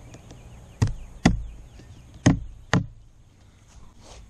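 Hammer driving a nail through a paper target and cardboard into an oak board: four sharp blows, in two pairs.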